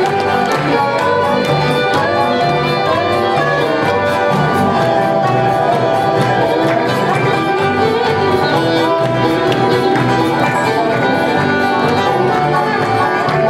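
Live bluegrass band playing a song, with fiddle and dobro over acoustic guitar and drums keeping a steady beat.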